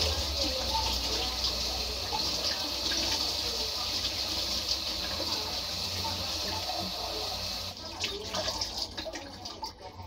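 Kitchen tap running onto a whole raw chicken being rinsed by hand, the water splashing into a plastic basin below. The running water stops abruptly about three-quarters of the way through, leaving scattered wet clicks and handling noises.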